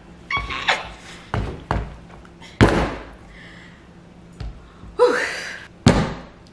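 A chef's knife chopping through a raw butternut squash onto a plastic cutting board: about eight sharp thunks, unevenly spaced, the loudest about two and a half seconds in.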